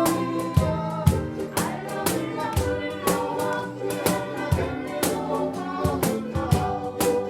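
Live ukulele ensemble music: chords strummed in a steady rhythm about twice a second under a held melody line.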